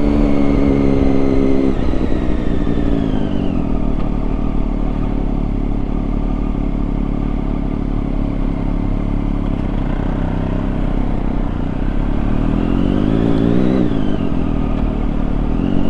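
Triumph Daytona 675's three-cylinder engine heard from the rider's seat on the move. The engine note holds steady, drops away after about two seconds as the revs fall, then rises and falls again about two-thirds of the way through.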